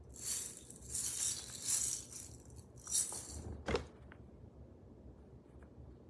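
Small plastic skull-shaped music shaker rattling in several quick shakes over about three seconds, its beads hissing. A single sharp knock follows shortly after.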